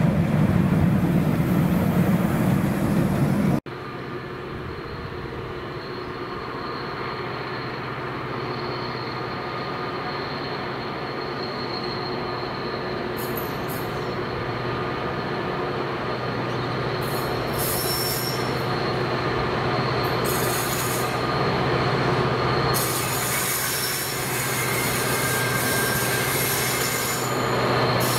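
Loaded stone hopper wagons rumbling past close by, cut off suddenly about three and a half seconds in. Then a Class 59 diesel locomotive's EMD two-stroke engine approaching at the head of a loaded aggregate train, a steady low drone growing gradually louder, with a thin high-pitched squeal from the wheels on the curve.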